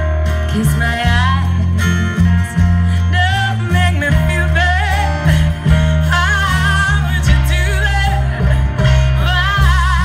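A live folk band playing a song through a stage PA, heard from the audience: strummed acoustic guitars over a heavy, steady low end, with a lead melody that slides between notes and wavers with vibrato toward the end.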